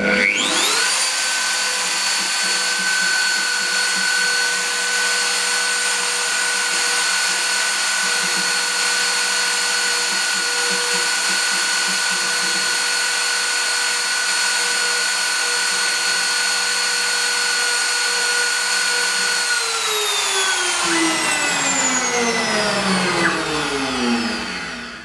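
CNC router spindle spinning up to speed within the first second, then running with a steady high whine while its engraving bit cuts into an aluminium plate. Over the last five seconds or so it winds down, its pitch falling until it stops.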